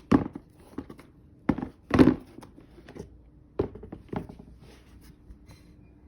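Sneakers and their box being handled: a run of about six short knocks and rustles, the loudest around two seconds in.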